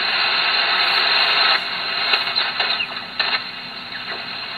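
Ten-Tec Jupiter 538 HF transceiver's receiver audio as its tuning dial sweeps down the 40-metre band in lower sideband: a steady hiss of band noise, easing about a second and a half in, with short chirps that slide in pitch as the dial passes over signals.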